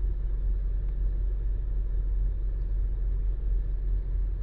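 Steady low rumble with no distinct clicks or knocks, unchanged throughout.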